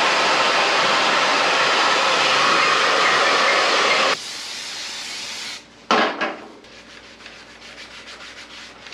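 An electric hot-air blower runs with a steady rushing blast. About 4 s in it drops to a lower setting, and it cuts off about a second later. A sharp knock follows, then light handling and rustling sounds.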